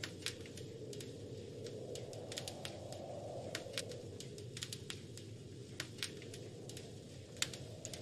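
Wood fire crackling in a fireplace, with irregular sharp pops and one louder snap near the end, over a low rush of wind that swells and eases.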